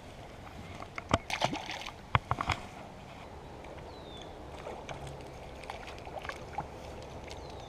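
A few short splashes and knocks in the river water, then the steady wash of the flowing river with a faint high chirp.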